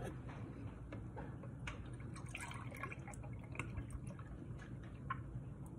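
Milk being poured from a carton into a glass measuring cup, faint, with a few light ticks.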